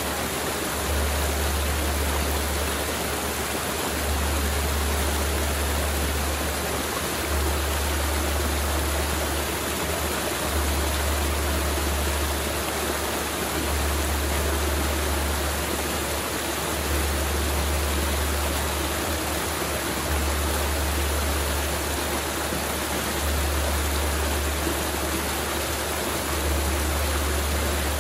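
Mountain river flowing over rocks, a steady rushing of water, with a low rumble underneath that swells and drops every few seconds.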